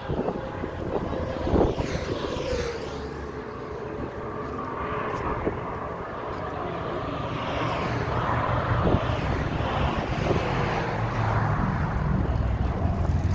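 Engine noise of a passing vehicle or aircraft, a steady rumble that builds louder over the second half, with tones that slide in pitch.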